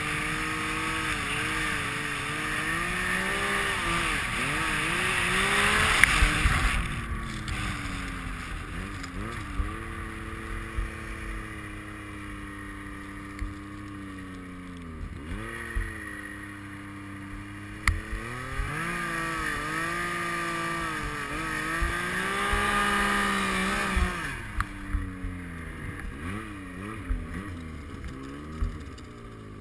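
Yamaha Nytro snowmobile's three-cylinder four-stroke engine running under load in deep snow. The throttle is opened and eased again and again, so the engine pitch climbs and sags several times, with scattered sharp knocks from the sled.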